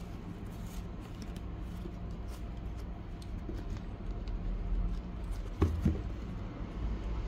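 Cardboard packaging of a Shure SM58S microphone being handled as the inner sleeve slides out of its box, with light scraping and small clicks. Two sharp knocks close together come about five and a half seconds in, over a steady low rumble.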